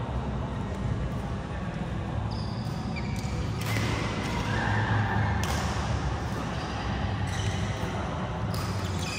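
Badminton rally in a large hall: shuttlecock struck by rackets every second or two, with short squeaks of shoes on the court mats, over a steady low hum.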